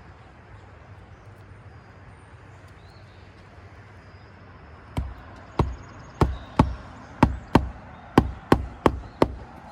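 Magnetic roofing hatchet driving roofing nails into an asphalt shingle: about ten sharp blows, several in quick pairs, starting about five seconds in.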